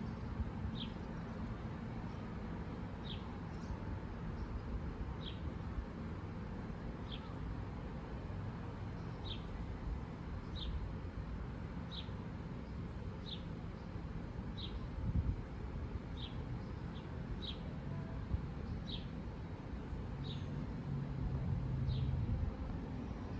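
A bird calling with single short, high, falling chirps, repeated about every second and a half, over a steady low rumble that swells near the end.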